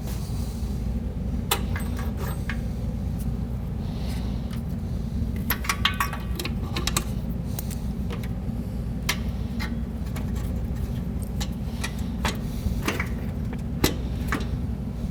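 Scattered metallic clinks and light rattles of hand tools and metal parts being handled while working on a car's front end, over a steady low hum.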